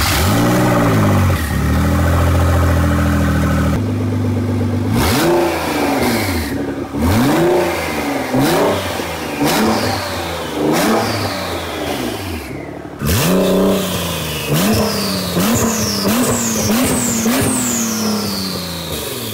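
Nissan GT-R's twin-turbo V6, running with no downpipes fitted, held at high revs at first and then blipped over and over, each rev rising and falling. High turbo whistles glide down after several of the blips.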